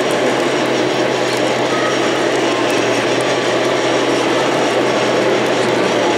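Radio-controlled scale DAF XF trucks driving, their onboard sound modules playing a steady diesel engine drone over a constant low hum.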